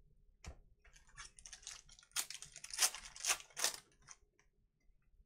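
Foil wrapper of a 2020 Donruss Elite football hobby pack crinkling as it is opened by hand: a quick run of crisp crackles, loudest from about two to four seconds in.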